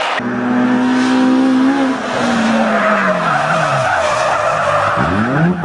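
Rally car engine at high revs. The pitch holds, then drops over a couple of seconds and climbs sharply again about five seconds in. Through the second half a broad rushing noise of sliding tyres runs under the engine.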